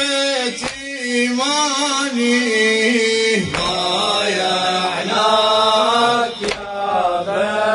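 Male voices chanting a Shia elegy (latmiya): a long, wordless, bending melodic line over a held vocal drone. The sound becomes fuller about three and a half seconds in.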